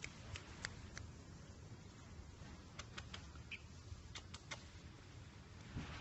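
Faint, sparse clicks and ticks, with a short high peep about three and a half seconds in, over a low steady hum; a louder knock comes at the very end.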